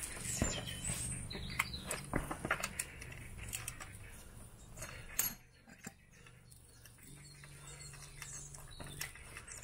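Handling noise: irregular light clicks and knocks, with one louder knock about five seconds in, then a faint low hum.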